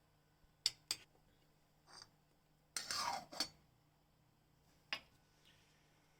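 Small metal kitchen utensils clinking against a miniature pot: two sharp taps about a second in, a short scraping rattle around the middle, and another tap near the end.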